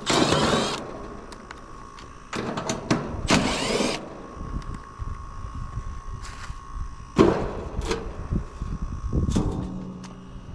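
Milwaukee M12 cordless impact driver backing out the screws of an air-conditioner condenser's service panel. It comes in several short bursts, each whirring up in pitch as it runs, with small clicks between them.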